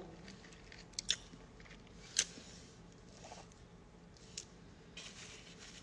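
Someone eating shaved ice: a few faint crunches and sharp clicks over quiet room tone, two close together about a second in and the loudest about two seconds in.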